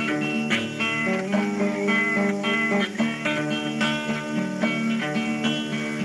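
Instrumental passage of a song: guitar playing a run of plucked notes over steady sustained accompaniment, with no singing.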